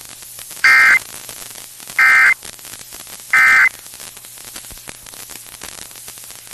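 Emergency Alert System End of Message signal received over FM radio: three short, identical bursts of the warbling two-tone SAME digital data code, about a second apart, marking the end of the alert. Steady radio static hiss with a faint hum lies underneath.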